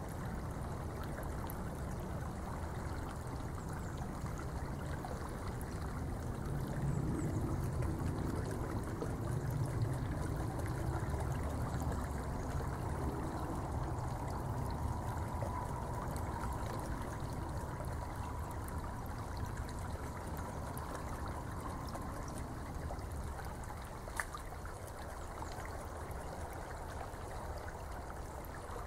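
Steady rush of running water, with faint crisp clicks of a beaver's teeth gnawing the bark off a green twig; one click stands out about three-quarters of the way through.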